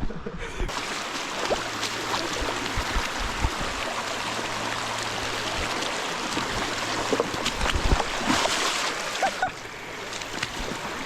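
Creek water rushing over rocks, a steady hiss that comes in under a second in and falls away near the end, with scattered knocks and splashes of footsteps crossing the wet rocks.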